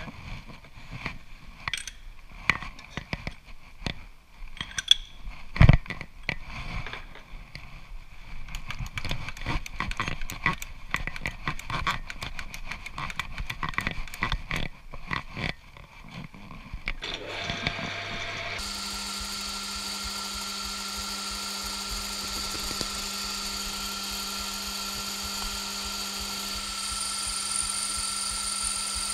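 Metal lathe being set up by hand: irregular clicks and metallic knocks as the toolpost and carriage handwheels are worked, with one heavy knock about six seconds in. After about eighteen seconds the lathe is switched on and the spindle runs steadily with a whine.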